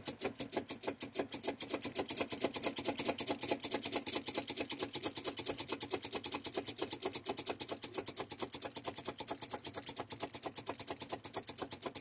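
Starter solenoid on a Volvo VNL's Cummins ISX chattering: a rapid, even clicking about ten times a second while the engine does not crank. The owner takes it for a starter that needs replacing, since the battery has voltage.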